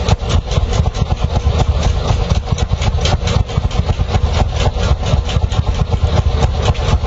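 Vintage tractor engine idling with a steady, rapid beat of evenly spaced strokes.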